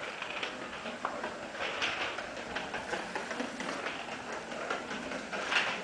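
Child's bicycle with training wheels rolling over a tiled floor, rattling with many small irregular clicks.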